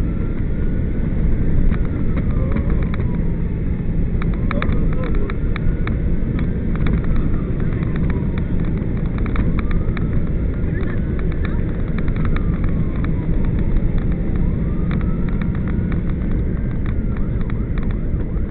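Vehicle driving with steady engine and road noise and scattered sharp clicks, over which an emergency siren wails, rising and falling about every four to five seconds.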